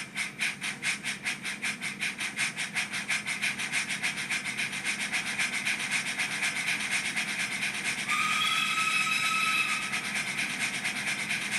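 Rapido 'Lion' model steam locomotive's DCC sound decoder playing steam exhaust chuffs through its small speaker, about five beats a second and quickening slightly as the loco runs faster. Past the middle a whistle tone sounds for about a second and a half over the chuffing.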